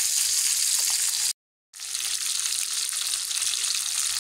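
Small whole catfish (cá chốt trâu) frying crisp in hot oil in a pan, a steady sizzle. It cuts out completely for a moment about a second and a half in, then resumes.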